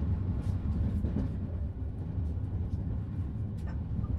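Steady low rumble of a passenger train rolling along the track, heard from inside the coach, with a few faint clicks.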